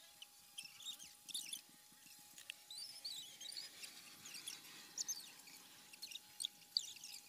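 Many short, irregular high-pitched chirps and squeaks from small animals, some sliding in pitch, over a faint steady whine, with a few sharper clicks.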